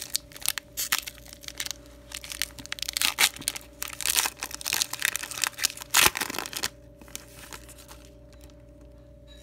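Foil wrapper of a Panini baseball card pack being torn open and crinkled by hand: a run of crackles and tearing for about six and a half seconds, the loudest about six seconds in, then quiet.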